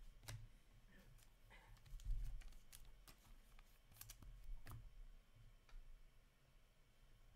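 Faint scattered clicks and light taps of trading cards being handled and set down on stacks by hand, over a steady low hum.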